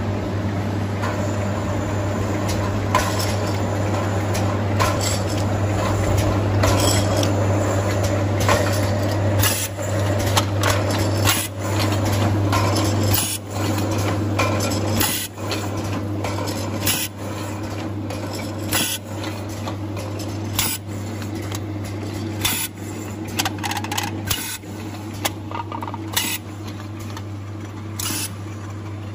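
Automatic aluminium can seaming line running: a steady low machine hum with empty aluminium cans clinking and clanking irregularly against each other and the conveyor guide rails.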